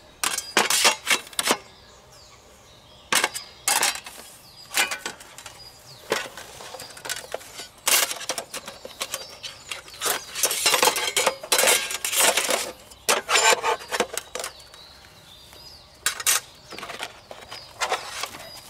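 Thin metal panels and grate of a Fennek folding grill clattering and clicking as they are stacked and fitted back into its flat case: scattered clusters of sharp knocks with short pauses between, busiest about ten to thirteen seconds in.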